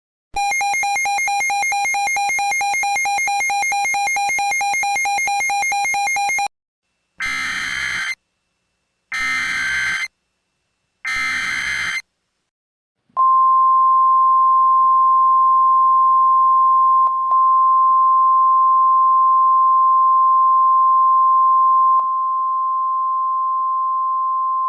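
An Emergency Alert System / NOAA Weather Radio alert sequence. A buzzy electronic tone lasts about six seconds, then come three one-second bursts of screeching SAME header data that encode the alert. About halfway through, the steady single-pitch 1050 Hz Weather Radio warning alarm tone begins and holds, announcing a flood warning.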